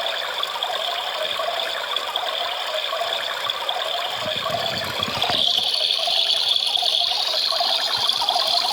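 Battery-operated toy washing machine running: its small motor whirrs steadily with a rattle as the drum turns in water. About five seconds in, the whirr steps up in pitch and gets louder.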